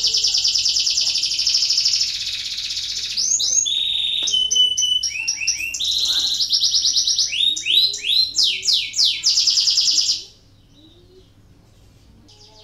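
Domestic canary singing: long fast rolling trills mixed with quick runs of rising and falling notes. The song breaks off about ten seconds in.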